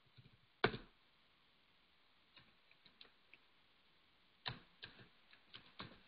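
Computer keyboard keys clicking faintly as text is typed: a single keystroke about half a second in, a few very faint ticks, then a quick run of about seven keystrokes near the end.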